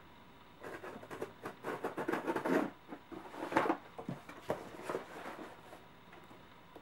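A blade cutting open a shipping box, heard as a series of short, irregular scratchy strokes, the loudest about three and a half seconds in.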